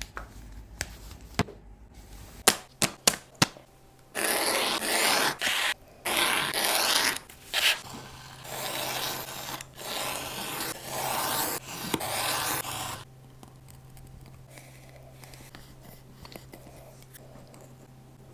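A utility knife blade scraping through leather in several long strokes along a steel ruler, after a few sharp clicks early on.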